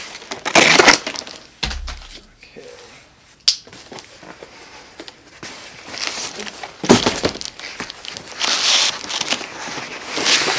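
Large cardboard shipping box being opened by hand: cardboard flaps and panels rubbing, scraping and crinkling in several loud, noisy bursts.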